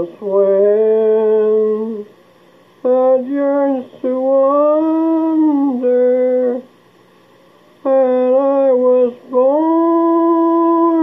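A man humming a slow melody in long held notes, with short breaks between phrases.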